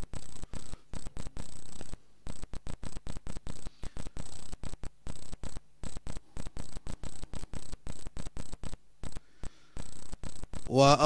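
Crackling electrical noise on the audio: a hiss with a low hum that cuts in and out irregularly several times a second, like a faulty connection. Near the end a man's chanting voice starts.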